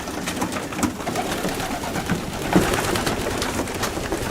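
A loft full of young racing pigeons cooing, over a steady rustle and scattered small clicks from the flock moving about.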